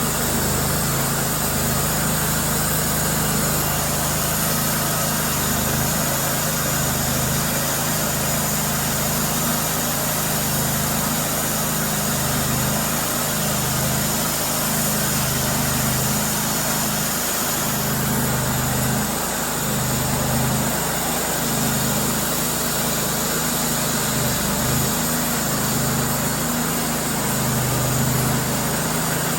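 A small engine running steadily at an even speed, with a low hum and a broad mechanical noise over it.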